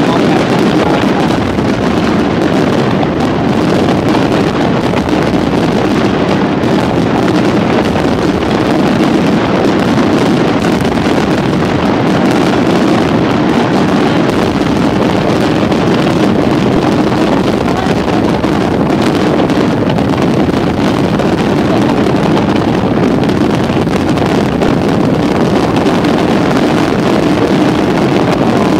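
Aerial fireworks barrage: many shells bursting over one another, merged into one steady, loud rumble with no single bang standing out.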